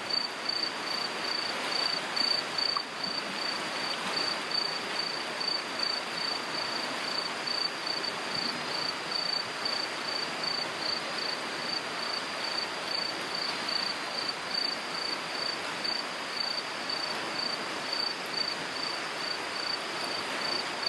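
Swollen, muddy floodwater rushing steadily down a small stream after heavy rain. Over it an insect chirps in a high, even pulse, about three chirps a second.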